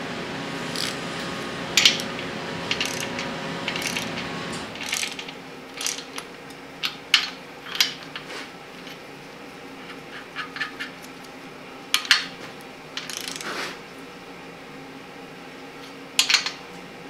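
Torque wrench ratcheting in short, irregular bursts of metallic clicks on the main bearing cap bolts of a Chrysler 383 big-block V8 as they are tightened to 85 foot-pounds.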